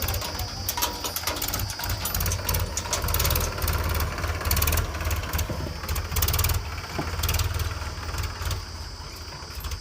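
Diesel engine of a backhoe loader or tractor running with an uneven low rumble, with frequent short metallic rattles and clicks over it.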